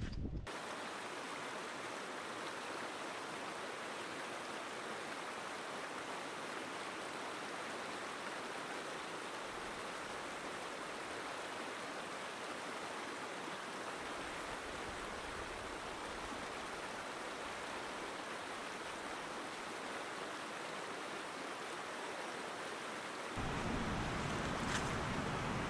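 Rushing mountain water, a steady even rush. About 23 seconds in it cuts abruptly to a louder, deeper rush.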